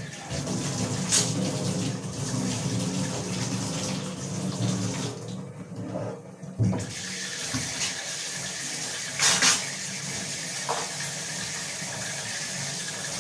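Water running from a kitchen tap into a sink, with a few sharp clatters of utensils. The flow drops off for a moment about six seconds in, then runs again.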